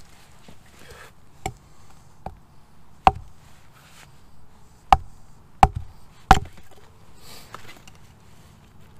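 Hatchet chopping into a dead log: about six sharp strikes at uneven intervals, with three of the hardest coming close together about five to six seconds in.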